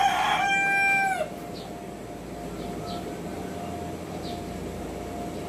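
A rooster crowing: the long closing note of the crow is held for about a second at a steady pitch and falls off at the end. After it, faint short high chirps come about every second.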